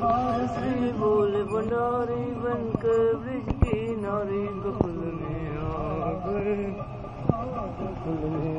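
A voice singing a wavering, drawn-out melody with music, broken by a few sharp clicks.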